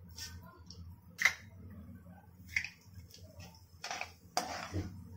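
Mustard seeds spluttering in hot gingelly oil in a steel kadai: irregular sharp pops, the loudest a little over a second in. The popping is the tempering stage and the sign that the oil is hot enough.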